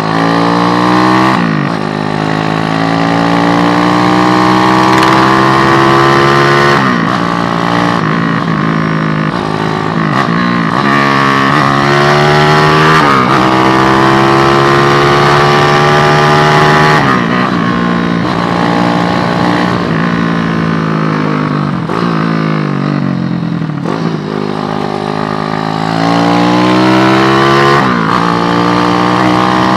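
Motorcycle with an SND ZS190 (Daytona Anima replica) single-cylinder four-stroke engine, under way and accelerating through its five-speed gearbox. The engine note climbs steadily in each gear and drops sharply at each shift, several times, and later eases and picks up again with the throttle.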